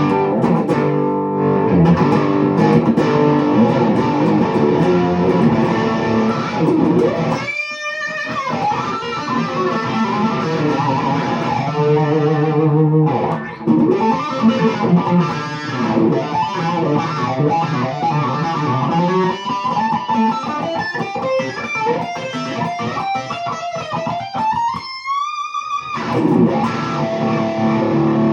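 Electric guitar, a Schecter Sun Valley Super Shredder, played through a tube hybrid amp: riffs and single-note lines, with a high held note shaken in wide vibrato about eight seconds in and again around twenty-five seconds.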